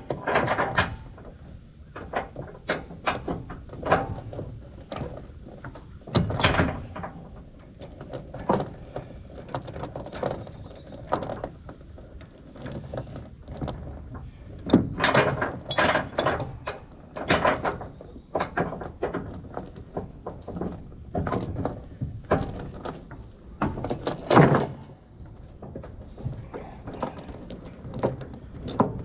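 A series of irregular knocks, clanks and rattles, each short and sharp, coming in clusters a second or two apart.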